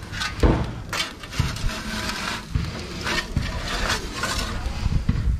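Perforated metal pizza peel scraping over the stone of a gas pizza oven as a pizza is slid onto it and pulled out, with irregular scrapes and a few sharp knocks, the strongest about half a second in.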